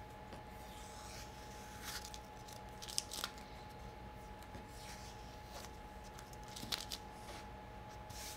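Tape being peeled off a wood veneer panel in several short, faint crackling rips, the loudest about three seconds in and again near the end.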